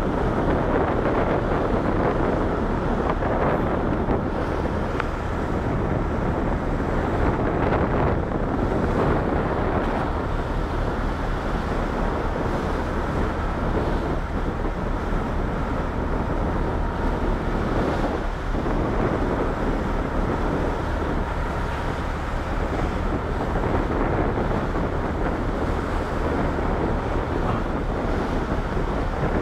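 Wind rumbling on a mobile phone's microphone over the open sea, with the wash of water and a low steady hum underneath.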